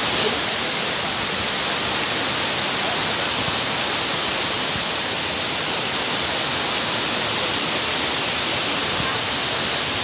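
Steady rush of a mountain waterfall and its stream, an even hiss of falling water with no breaks.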